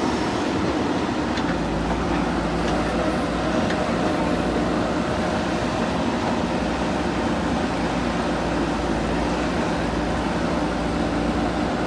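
Heavy earthmoving machinery's diesel engine running at a steady speed.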